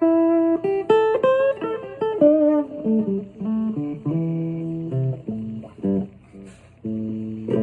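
Electric guitar played through a Digitech RP6 multi-effects processor on a blues delay preset: a run of blues licks with a string bend rising about two seconds in. The preset has the unit's silencer (noise gate) switched on.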